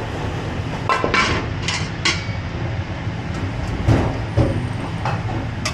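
Busy restaurant kitchen at the stove: a steady low rumble with steel pans, bowls and utensils clattering, a few sharp clinks a second or two in and a couple of knocks about four seconds in.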